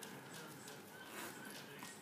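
Faint scuffling and light clicks of a Pomeranian and a small puppy tussling, with a couple of brief, faint high squeaks.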